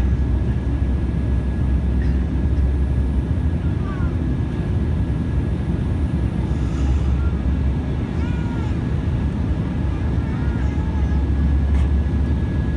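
Steady cabin roar of an Embraer E195's GE CF34-10E turbofan engines and airflow, heard from a window seat beside the engine, with a thin steady whine above the low rumble.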